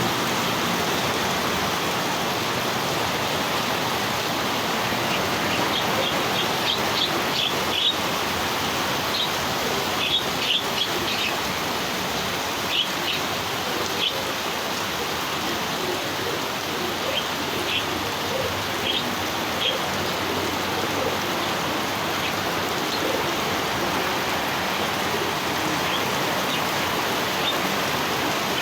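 Small birds chirping in short, high calls, scattered and most frequent in the first two-thirds, over a steady rushing noise.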